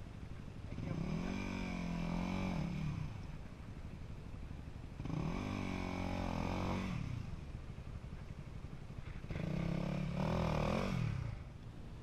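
Side-by-side UTV engine revving in three throttle bursts of about two seconds each, the pitch climbing, holding and dropping back each time, as it works to climb a steep rock ledge.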